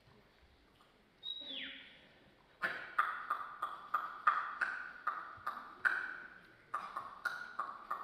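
Mouth sound effects through a headset microphone: a falling whistle-like glide, then a run of sharp ringing pings, about two or three a second.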